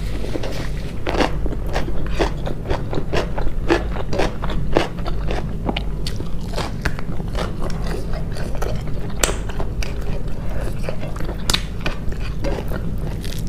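Close-miked chewing with many sharp, irregular crunches and mouth clicks, over a steady low hum.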